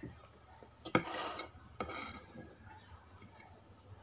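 Metal fork clicking and scraping in a plastic bowl of noodles: a sharp click about a second in and another near two seconds, each followed by a brief scrape.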